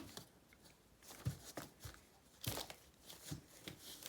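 Cardboard box scuffing and rustling in short, irregular strokes as a cat moves about inside it, batting at a toy mouse.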